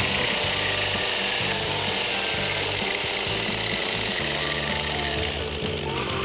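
Chainsaw cutting wood, its chain trimming out a square notch in a log; the cutting noise drops away about five and a half seconds in.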